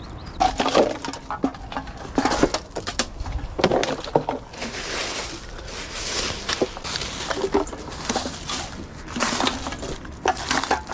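Litter being gathered by gloved hands from under a hedge: plastic wrappers and bottles crinkling and rustling among dead leaves, with irregular clicks and knocks and two longer stretches of rustling.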